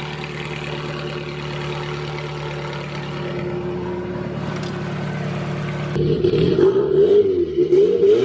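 Forged Toyota 5E-FE inline-four with big camshafts idling steadily, then about six seconds in it gets louder and is revved up and down in a few quick blips.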